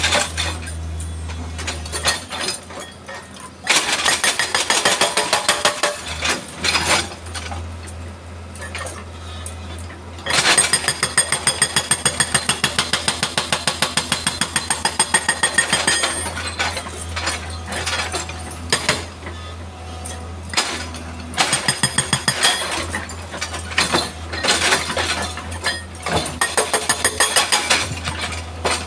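Hydraulic rock breaker on a Hitachi excavator hammering rock in repeated bursts of rapid, even blows, over the steady drone of the excavator's diesel engine. The longest run of blows comes about a third of the way in, with further bursts later on.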